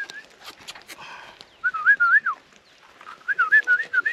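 A person whistling two short warbling phrases, the pitch flicking quickly up and down, calling a dog that has wandered off.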